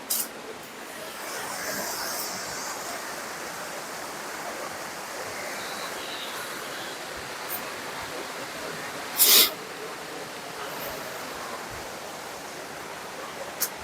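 Steady rush of flowing water from a rainforest creek or cascade. A single short, sharp knock or scrape about nine seconds in.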